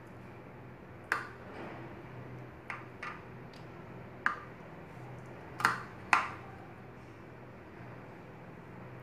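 Knife blade clinking against the bottom of a glass baking dish as it cuts down through set custard pudding: about six sharp clinks at irregular intervals, the loudest two close together a little past the middle, over a low steady hum.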